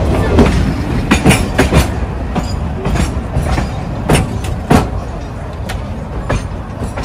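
Sóller Railway wooden carriages rumbling along the track, with about eight sharp, irregular clacks from the wheels on the rails. The rumble eases off slowly toward the end.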